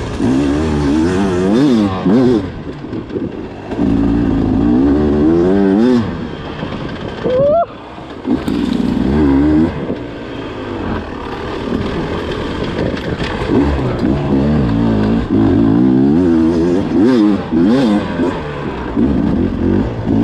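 Beta 250 two-stroke enduro motorcycle engine being ridden hard, its pitch rising and falling again and again with the throttle and gear changes. A little before the middle it revs up sharply, then drops off briefly before pulling again.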